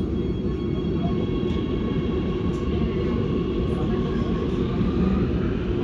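Oslo metro MX3000 train heard from inside the carriage as it pulls away from a station: a steady low rumble of wheels and running gear with a faint motor whine rising slowly in pitch as it speeds up.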